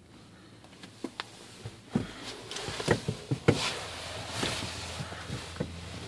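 Handling noise from a handheld camera being moved around a small aircraft cockpit: scattered clicks, knocks and rustling, loudest about three seconds in. A steady low hum sets in a little past halfway and keeps going.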